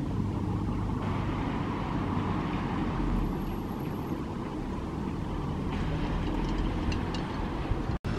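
Steady distant city traffic rumble, a low even wash of road noise, which cuts out for an instant near the end.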